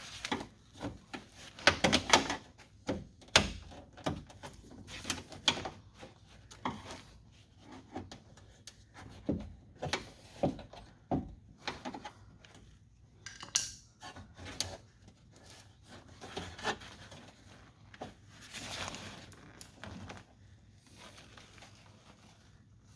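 Irregular clicks, knocks and rubbing of plastic and metal parts inside a car door as the door handle and its linkage are worked loose by hand. The loudest knocks come about two seconds in.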